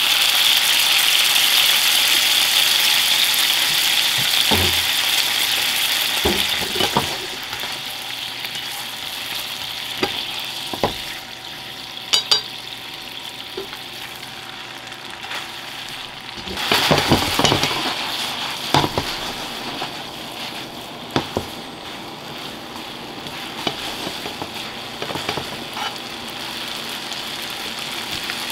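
Hot olive oil with garlic, chilli and bacon sizzling hard in a frying pan as salted pasta cooking water is poured in; the hiss eases off over several seconds. About two-thirds of the way in, boiled spaghetti is dropped into the pan and it sizzles loudly again, with scattered knocks of utensils against the pan.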